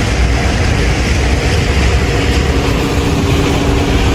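Steady street traffic noise with a heavy low rumble, and a faint steady hum joining about halfway through.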